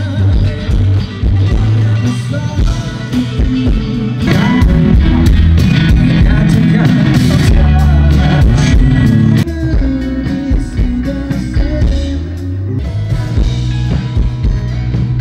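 A rock band playing, with electric guitars, drums and singing; it is loud throughout and eases off a little past the middle.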